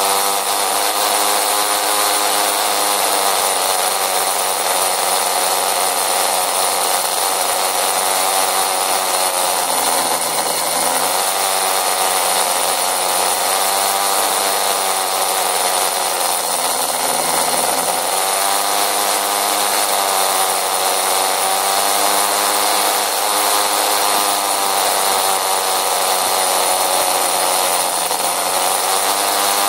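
A small motor scooter's engine buzzing steadily while riding at low speed. Its note drops twice, about ten and seventeen seconds in, as the throttle eases, then rises again.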